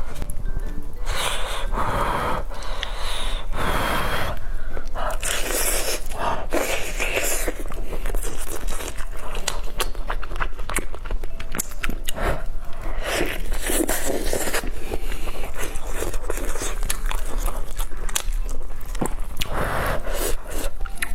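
Close-up eating sounds of a person biting into and chewing braised pork knuckle, with sharp wet clicks of chewing and several breathy huffs between bites.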